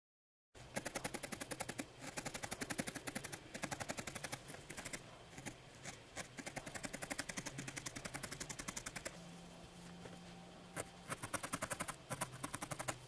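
A felting needle stabbing rapidly into a small ball of wool, pricking about eight times a second in runs broken by short pauses. The sound starts about half a second in.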